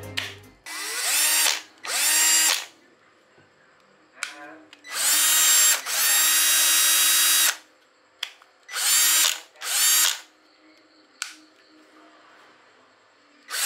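Cordless drill's DC motor run in a series of trigger pulls: short bursts of a high whine that rise in pitch as the motor spins up, with a longer run of about two and a half seconds in the middle.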